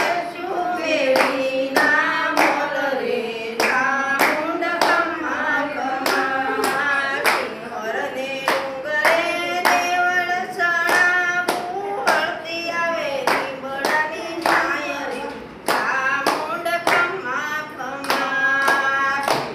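A group of women singing a devotional song to the goddess Chamunda together, clapping their hands to a steady beat.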